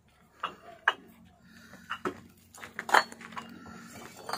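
Fired clay bricks clinking against each other as they are stacked onto a worker's carrying board: several sharp clinks with a short ring. A clear clink like this is what the kiln owner judges the bricks' firing by, and he calls the sound fine.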